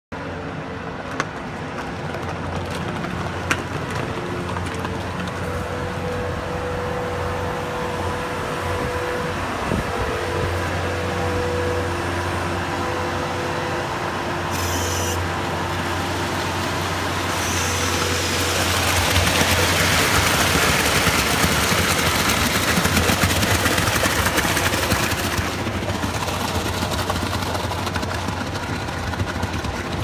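Skid steer engine running steadily with a low hum while wet concrete feeds down a chute from its mud bucket. A louder rushing noise swells about two thirds of the way in and eases off near the end.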